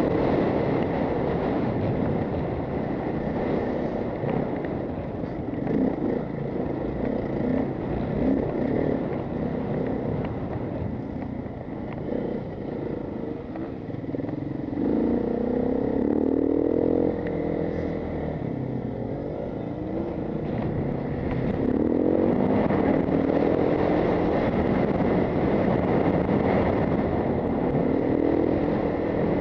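Off-road motorcycle engine running and revving up and down in pitch on a rough dirt and gravel ride, under heavy wind rush and rattling.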